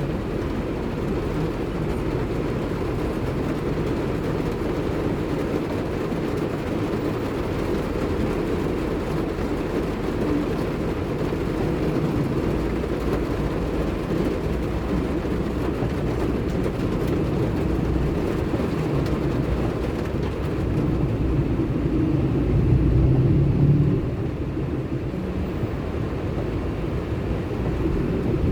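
Steady low rumble of a car driving, with road and engine noise on wet roads in heavy rain. It swells louder for a couple of seconds near the end.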